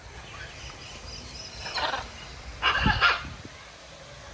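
Two harsh, loud bird squawks about a second apart, near the middle.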